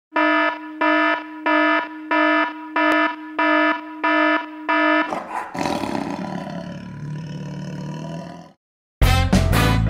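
Eight evenly spaced alarm-like beeps, all at one pitch, followed about five seconds in by a rough roar that lasts about three seconds and cuts off suddenly.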